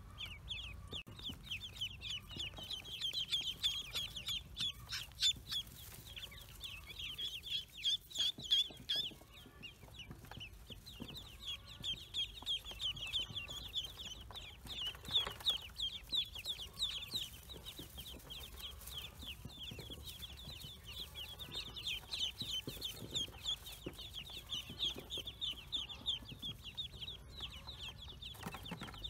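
A brood of newly hatched ducklings peeping almost without pause, many rapid high-pitched cheeps overlapping, with a few sharp clicks.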